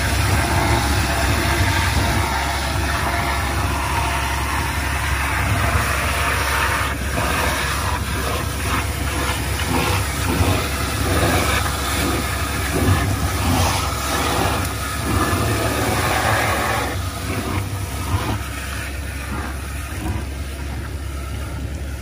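Hydro-excavation vacuum truck running, really loud: a steady low engine-and-blower rumble under a rushing hiss of air and water, with scattered short knocks.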